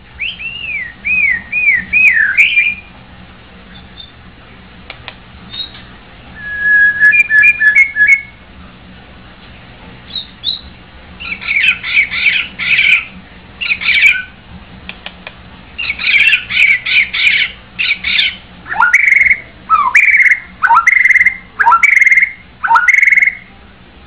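White-rumped shama singing: varied whistled phrases separated by short pauses, ending with a run of five loud downward-swooping whistles about a second apart.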